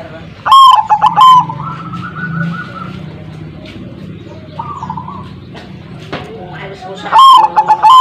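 Zebra doves (perkutut) calling: two loud calls about half a second and about seven seconds in, and a softer rolled coo about four and a half seconds in.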